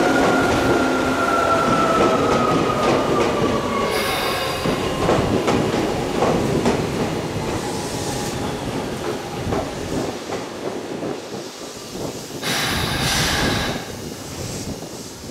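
Tokyu 8500 series field-chopper-controlled electric train slowing down: its motors whine, falling steadily in pitch over the first few seconds, over wheel and rail-joint clatter that fades. About twelve seconds in, a short burst of hiss.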